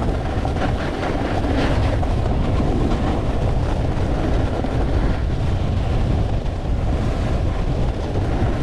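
Wind rushing over a GoPro's microphone as a snowboard slides down groomed snow, the board's base and edges scraping over the snow surface, with a little extra scraping about a second or two in.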